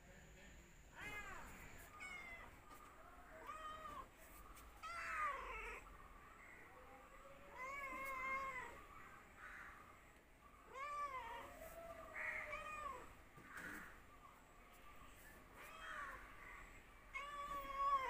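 A domestic cat meowing repeatedly, short calls every second or two, several rising and then falling in pitch.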